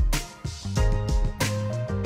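Background music with a steady drum beat over sustained bass and instrument notes.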